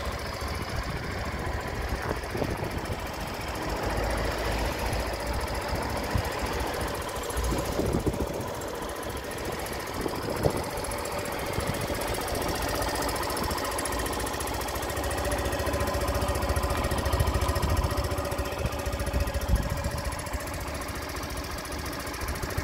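Yamaha YS125's single-cylinder four-stroke engine idling steadily, with a few short clicks.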